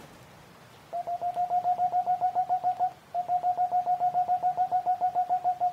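Male Tengmalm's (boreal) owl calling: a fast, even run of low hooting notes at one pitch, about eight a second. It comes in two runs with a brief break near the middle.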